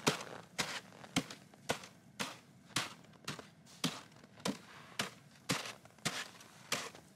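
Footsteps in snow at a steady walking pace, about two steps a second, each a short sharp crunch.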